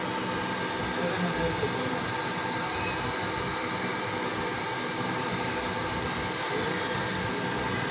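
Hot-air rework gun blowing steadily during repair of the car's ECU circuit board: an even hiss with a steady fan whine. It starts and stops abruptly.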